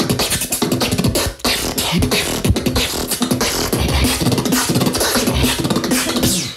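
Solo beatboxing in a fast, technical drum-and-bass style: rapid mouth-made kicks, snares and hi-hats over hummed bass tones, with a brief break about a second and a half in.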